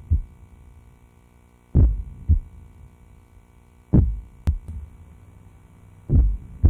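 Slow heartbeat: pairs of low thumps, the second weaker and about half a second after the first, repeating about every two seconds over a faint steady hum.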